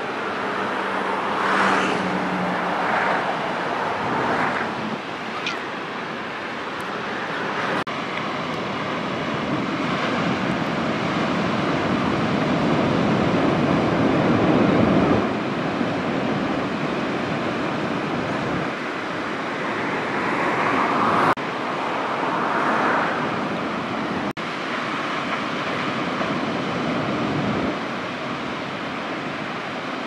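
Ocean surf breaking and washing ashore: a steady rushing noise that swells and fades every few seconds as the waves come in. A faint low hum sits under it for the first few seconds.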